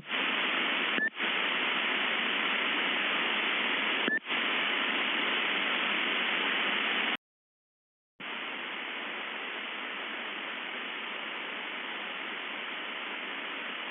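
Band-limited broadcast static hiss, like a weak radio or TV signal. It drops out briefly twice in the first few seconds, cuts to silence for about a second midway, then comes back a little quieter.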